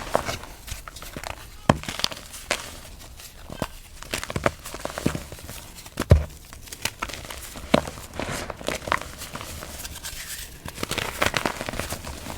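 Reformed gym chalk being crushed: irregular crunches and crackles as the blocks break up, crunchy and soft at once, with one heavier thump about halfway through.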